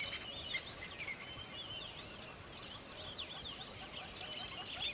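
Several songbirds chirping and trilling together in a forest dawn-chorus style, many quick rising and falling whistled notes overlapping, over a faint steady background hiss.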